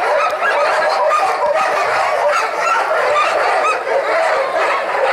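A team of sled dogs barking, yelping and howling all together in a dense, continuous chorus, excited while being hooked up for a run.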